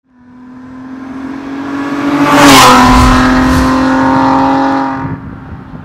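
Logo intro sound effect: a held, pitched tone swells up to a whooshing hit about two and a half seconds in, with a second hit a second later. It then holds and fades out near the end.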